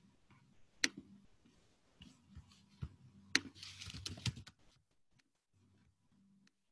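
Scattered clicks and a short burst of typing on a laptop keyboard, the sharpest clicks about a second in and again just after three seconds.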